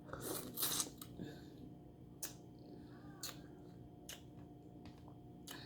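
Close-up eating sounds of a person eating shrimp: a slurp in the first second, then a few sharp mouth smacks about a second apart.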